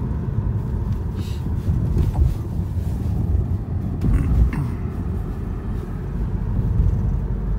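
Road and tyre rumble inside a Lada Vesta Cross driving over a rough, potholed country road, with a couple of knocks from bumps about two and four seconds in.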